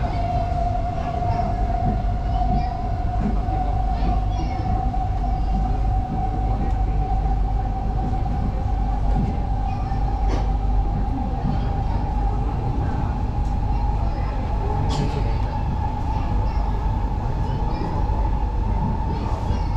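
Interior of a Singapore MRT train in motion: a steady low rumble of wheels on the track under an electric traction motor whine that rises slowly in pitch as the train picks up speed, with a few brief clicks.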